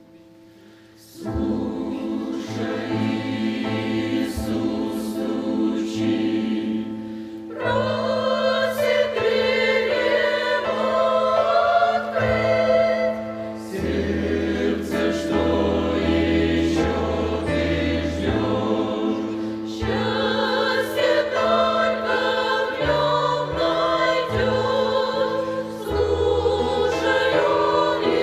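Church choir singing a Russian-language gospel song, coming in about a second in after a quiet start, with sustained low notes held underneath.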